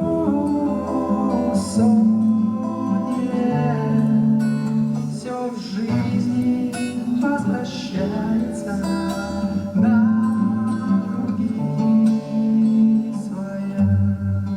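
Live song with acoustic guitar accompaniment and a man singing the melody, the low notes stepping from chord to chord.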